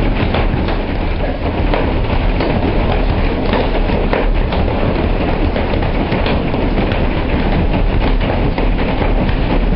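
Heavy hail pelting down on the ground: a dense, steady clatter of countless small hailstone impacts.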